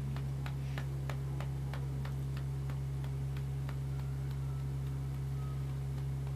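A steady low hum with a run of evenly spaced ticks, about three a second, that fade out about four seconds in.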